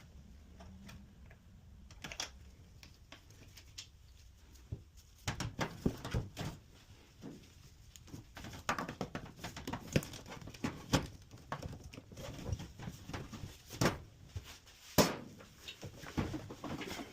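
Irregular clicks, taps and knocks of hands and tools handling washing-machine parts, with no steady running or water noise.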